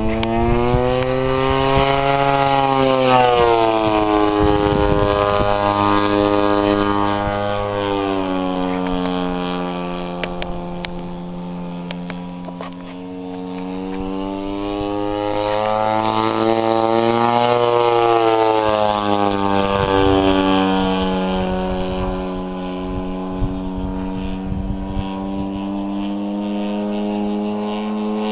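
Engine and propeller of a 33%-scale Aeroworks Extra 300 radio-controlled aerobatic plane in flight. The pitch drops about three seconds in, climbs again around sixteen seconds and drops once more near twenty. The sound is faintest in the middle.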